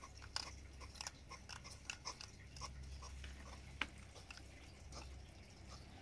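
Hedgehog eating from a bowl at close range: faint, irregular chewing with small sharp clicks, one louder click about four seconds in.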